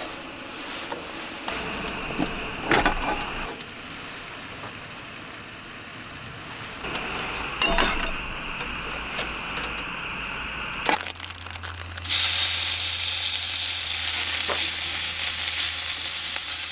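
Food sizzling in a frying pan on a camp gas stove, with a few clicks of metal tongs on the pan; about twelve seconds in, a much louder, steady sizzle starts as sliced beef fries in the hot pan.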